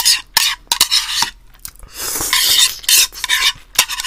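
Chopsticks clicking and scraping against a small dish as food is picked up, close to the microphone: a series of sharp clicks, with a longer scraping rustle about halfway through.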